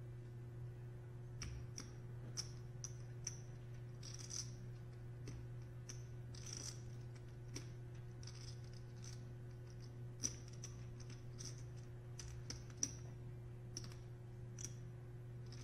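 Clay poker chips clicking against each other as they are handled at the table: scattered light clicks with a short bright ring, some in quick runs, over a steady low hum.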